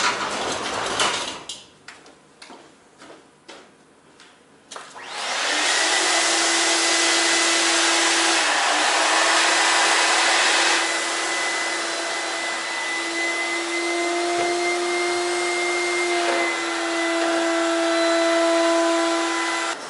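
A few light clicks and knocks, then about five seconds in a steady machine noise starts: a loud hiss with a steady hum and a higher whine, running on until just before the end.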